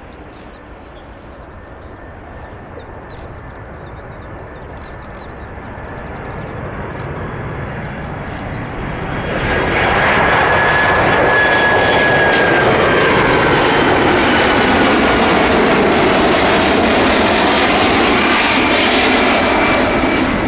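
United Boeing 767-400 twin-engine jet arriving: its engine noise grows slowly louder, then jumps sharply about halfway through and stays loud, with a whine that falls in pitch as it passes.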